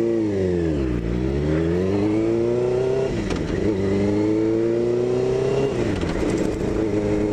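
Suzuki GSX-R600 K1's inline-four engine running as the bike is ridden. Its note dips in the first second, then climbs twice under throttle, dropping back sharply about three and six seconds in, and holds steady near the end.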